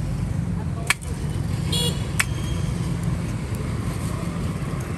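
Street traffic: a steady low rumble of a running motor vehicle engine, with a brief horn toot a little under two seconds in. Two sharp clicks sit around the toot, the first of them the loudest sound.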